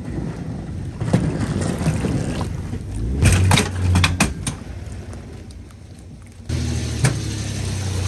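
Evinrude outboard motor running as an aluminium boat is power-loaded onto its trailer. Several knocks and clanks come about three to four seconds in as the hull comes onto the trailer. About six and a half seconds in the motor throttles up suddenly to push the boat fully on, churning the water.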